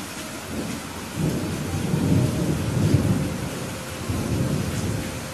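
Thunder rumbling over steady rain. The low rumble builds about half a second in, peaks twice, and dies away near the end, while the rain hiss continues.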